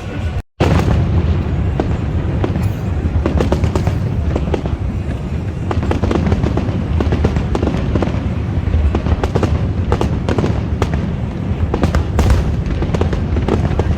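Fireworks display: a dense, continuous barrage of bangs and crackles over a steady low rumble. The sound cuts out for a moment about half a second in.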